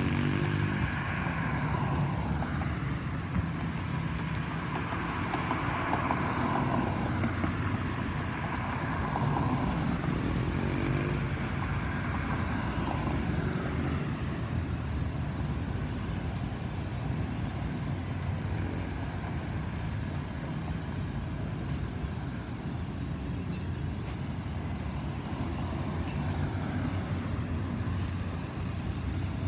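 Boeing 737-800 airliner with CFM56 jet engines passing overhead at altitude: a steady, broad engine noise whose tone shifts slowly as it goes over.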